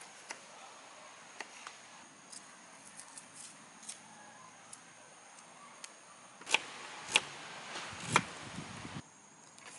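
Kitchen knife cutting red onion on a wooden cutting board: faint light taps and clicks, then three sharp knife strikes against the board in the second half.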